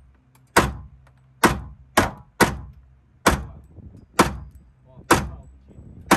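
Semi-automatic pistol fired in a steady string of about eight shots, roughly one a second, with two close together about two seconds in. Each shot has a short echoing tail in the enclosed range.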